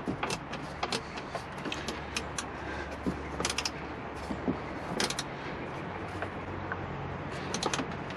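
Scattered small clicks and metallic taps as a screw is tightened by hand with a T20 Torx bit onto a ground terminal in the car's door-pillar trim, over a low steady hum.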